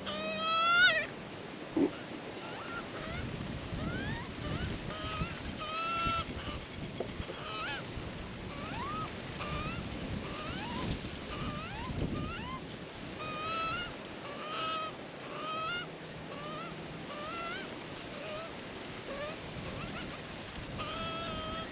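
Australian magpies calling: drawn-out squawks repeated every few seconds, typical of a juvenile begging, with short rising whistled notes in between. Wind rumbles on the microphone underneath.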